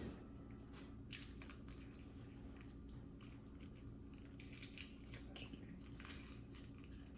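Faint chewing of a hard, chewy raspberry candy: scattered soft clicks and smacks over a low steady hum.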